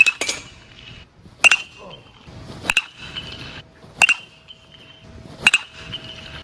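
Sharp metallic pings, five in a row about a second and a half apart, each with a short high ring after the strike.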